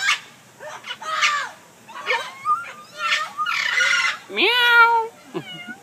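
Talking parrot giving several short raspy squawks, then a cat-like 'meow' in imitation of a kitty about four and a half seconds in.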